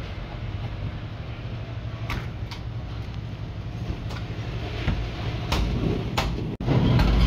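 Steady low rumble with scattered sharp clicks and knocks from a butcher's knife and meat being handled on the cutting surface. Near the end the sound drops out for an instant and comes back with a louder rumble.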